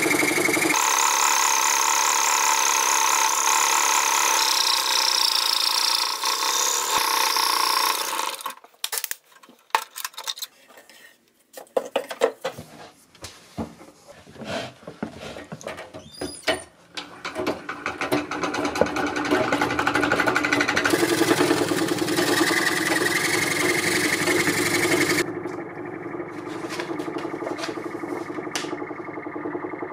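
Scroll saw with a thin, delicate blade running and cutting through a thin metal plate, a steady mechanical buzz. About eight seconds in it stops for several seconds, leaving scattered clicks and knocks, then runs again and becomes quieter and duller for the last few seconds.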